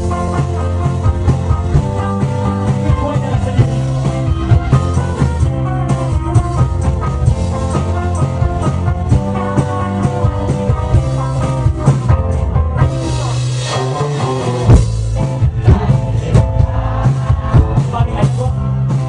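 Rock band playing live: electric guitars over bass and a drum kit, a steady driving beat.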